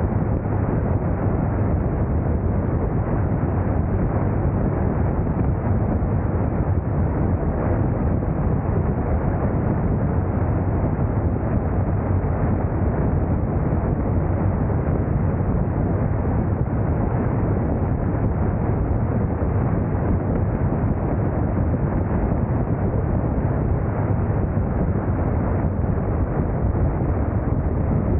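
Motorcycle under way at steady speed: wind rushing over the microphone along with the low steady noise of the engine and road, unbroken throughout.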